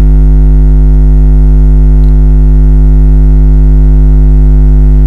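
Loud, steady electrical mains hum, low and unchanging, picked up in the recording.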